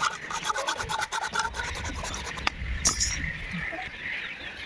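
Fast, even rasping strokes of a tool working a PVC pipe, about eight a second, that stop about two and a half seconds in. A single sharp click follows.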